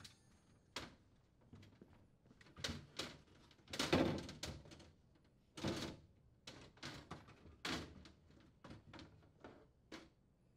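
Plastic-framed glass crisper drawer shelf knocking and clicking against the refrigerator's plastic liner and rails as it is tilted and pulled out: a scattered series of light knocks and rattles, the louder ones bunched a few seconds in.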